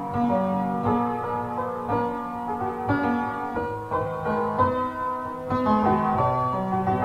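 Instrumental keyboard music: a melody over held low notes that change every second or so.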